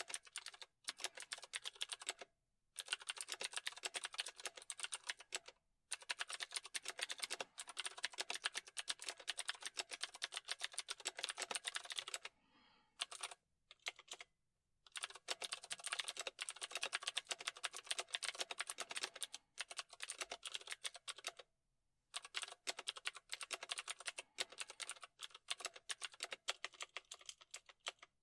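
Computer keyboard typing in fast, continuous runs of keystrokes, broken by a few short pauses, the longest a couple of seconds about halfway through.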